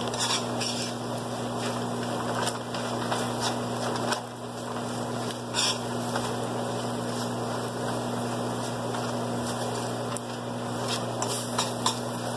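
Onion, garlic and spices frying in oil in a pot: a steady sizzle with scattered sharp clicks, over a low steady hum.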